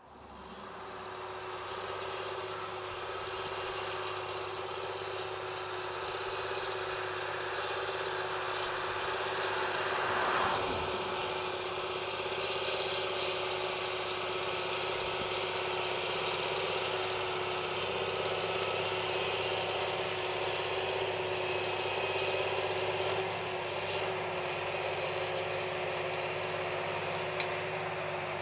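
John Deere 8420 tractor's six-cylinder diesel engine running at a steady pitch, with a brief swell about ten seconds in.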